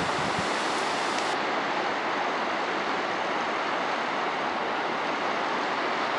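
The River Tyne in spate after heavy rain, its brown floodwater rushing over shallows and round a shingle island. It makes a steady, even rush of water.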